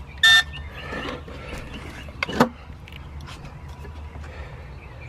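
Electronic key-card door lock giving one short, loud beep about a third of a second in, as the card fails to open the door. About two and a half seconds in there is a single clunk, over a steady low hum.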